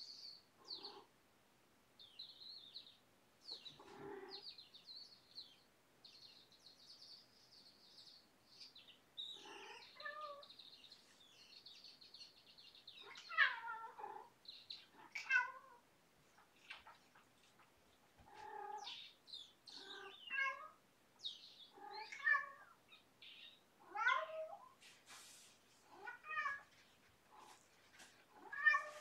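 A cat meowing again and again: thin, high squeaky calls in the first half, then louder, drawn-out meows every second or two. It is a cat calling in the small hours while not in heat, which the caretaker puts down to her wanting to be played with.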